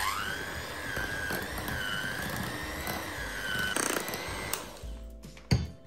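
Electric hand mixer running, its beaters whipping cream cheese in a glass bowl: the motor whine rises as it starts, wavers a little as the beaters work through the cheese, and stops about four and a half seconds in.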